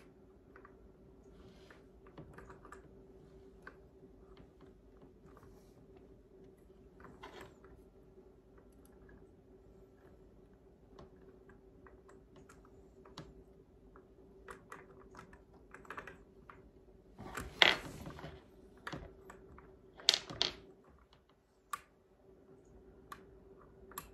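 Scattered small clicks and taps of hands fitting a Picatinny rail adapter and its pin onto a rifle's fore-end, with a few louder clacks about two thirds of the way through. A steady low hum runs underneath.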